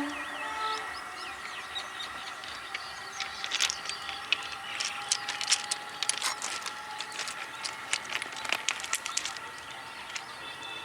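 Passing train on the tracks: a run of irregular sharp wheel clicks and rattles over the rails from about three seconds in until near the end, over a faint steady whine and hiss. Birds chirp briefly near the start.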